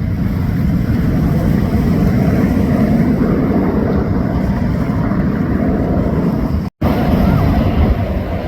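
Jet engine noise from a Marine Corps F-35B's single F135 afterburning turbofan: a loud, steady, deep rumble. The sound cuts out for an instant near the end, then picks up again.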